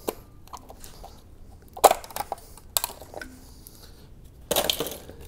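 A few separate knocks and clatters of engine parts and tools being handled during the teardown. The loudest is just under two seconds in, and a longer rattling clatter comes near the end.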